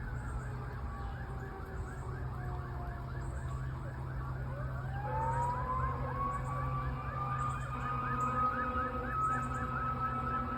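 Fire engine sirens: one in a fast yelp of about four warbles a second, joined about halfway through by a second siren winding up from low to a steady high wail. A steady low rumble runs underneath.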